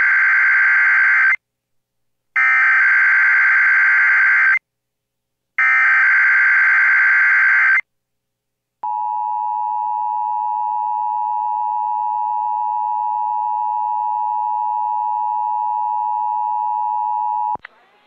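Emergency Alert System SAME header for a Required Monthly Test: shrill bursts of digital data, the first already under way and two more about a second apart. They are followed by the two-tone EAS attention signal (853 and 960 Hz), held steady for about nine seconds before it cuts off sharply.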